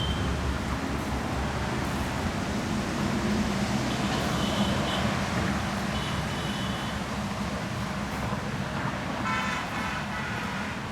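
Road traffic: vehicle engines running steadily, with a few short horn toots about four seconds in, about six seconds in, and again near the end.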